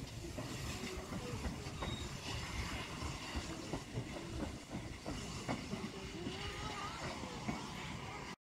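GWR 4500-class 'Small Prairie' 2-6-2 steam tank locomotive moving along the track, with a steady rail rumble and scattered wheel clatter and clicks. The sound cuts off abruptly near the end.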